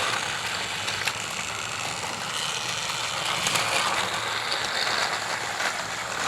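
Battery-powered toy Thomas and Percy engines running along the track, their small geared motors whirring steadily with a faint rattle.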